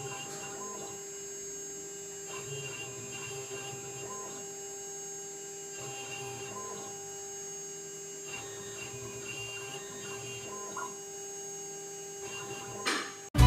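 Mini CNC engraving machine's spindle running with a steady whine of several fixed tones while it engraves a brass seal. A lower buzz and a faint higher chirp come and go every second or two as the head moves. Near the end there is a brief louder burst, then the sound cuts off sharply.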